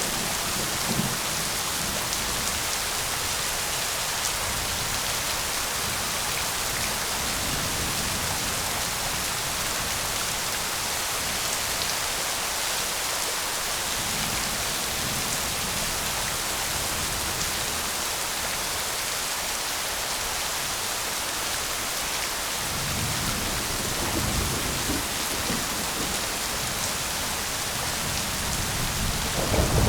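Steady rain hissing. A low rumble of distant thunder swells about three-quarters of the way through, and louder thunder begins right at the end.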